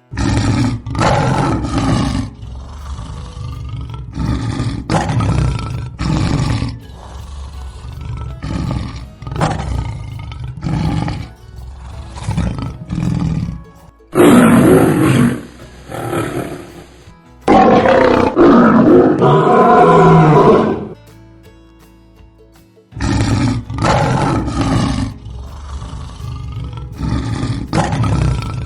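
Lions roaring, several bouts one after another: each roar trails off into a series of short grunts that come more slowly and grow fainter. A louder, longer roar comes about halfway through, then a short pause before a new bout of grunting roars.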